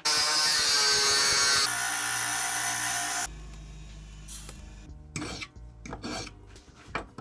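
A power tool cutting thin steel saw-blade plate with a loud high whine and hiss, which stops about three seconds in. Near the end comes a hand file rasping a few strokes across the edge of the small steel disc clamped in a vise.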